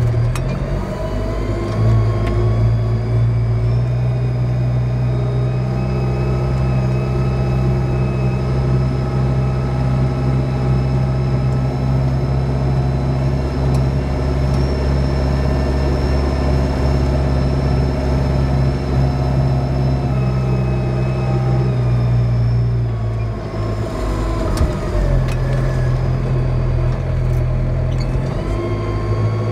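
Tractor diesel engine (Kubota MZ655-type, sold as NH-T2500MZ) running steadily under load while pulling a six-tine stubble cultivator through soil. The engine note drops and wavers about 23 seconds in, with a few knocks, then climbs again near the end.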